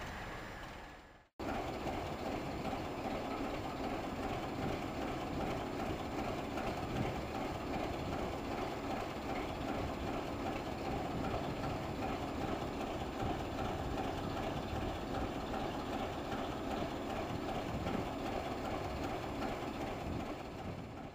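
Class 751 diesel-electric locomotive's six-cylinder ČKD engine idling steadily at a standstill. The engine note is even and unchanging, with no change in revs. About a second in, a short cut of silence interrupts the sound before the idling starts.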